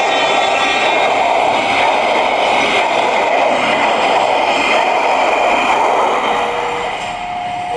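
Steady, loud rolling noise of a train going by close at hand. Near the end, a clean electronic tone starts, sounding first at a lower pitch and then at a higher one.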